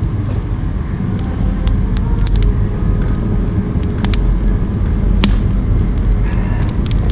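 Firewood burning in a wood stove: scattered sharp crackles and pops over a steady low rumble.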